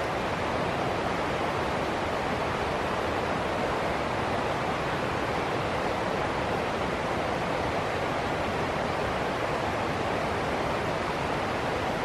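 Shallow rocky stream rushing and splashing over a small cascade of rocks: a steady, unchanging rush of water.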